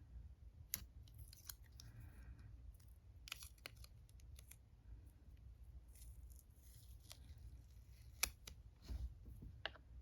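Faint, scattered small clicks and brief rustles from handling a watercolour pan set, with one sharper click a little after eight seconds.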